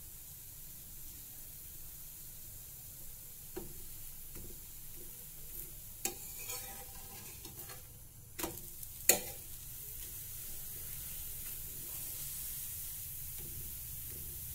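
Besan chilla batter frying on a hot tawa, sizzling steadily and a little louder in the second half. A few short knocks and scrapes come in the middle, the loudest about nine seconds in.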